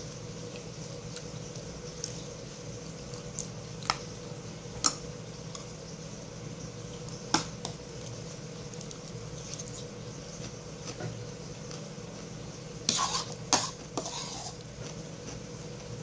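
Metal spoon clinking and scraping against a ceramic bowl of rice porridge while eating. There are a few single sharp clinks a second or more apart, then a quick run of clinks near the end, over a steady low hum.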